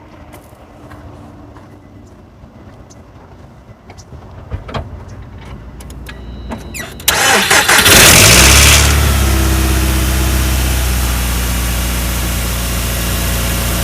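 2005 Nissan Altima's 2.5-litre four-cylinder engine cranking and catching about seven seconds in, flaring briefly, then settling into a steady idle: the no-crank, no-start fault cured by cleaned battery terminals. A few faint clicks come before it.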